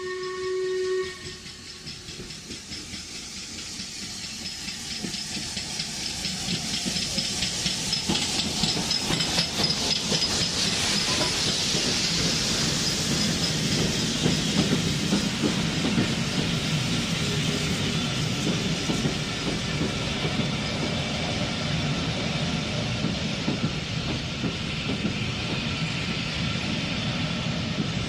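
Steam locomotive whistle sounds briefly and stops about a second in. Then LMS Black Five steam locomotive 45212 passes close by, hissing steam, louder as it draws level, followed by its carriages rolling past on the rails.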